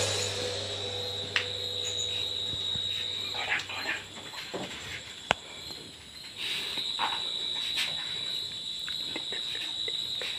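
Steady high-pitched cricket trill, with soft rustling of a mosquito net and bedding being handled and two sharp clicks, about a second in and about five seconds in.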